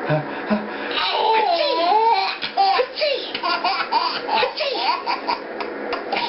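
A baby belly-laughing hard in quick, choppy bursts whose pitch rises and falls, starting about a second in.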